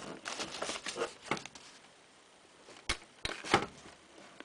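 Handling noise: rustling of newspaper and a hand brushing the TV's plastic front panel, followed by a few sharp clicks about three seconds in, the last one the loudest.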